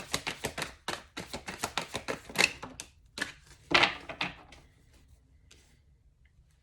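A deck of tarot cards being shuffled by hand: a fast run of card clicks in the first second or so, then a few louder, separate card slaps, dying away to quiet about five seconds in.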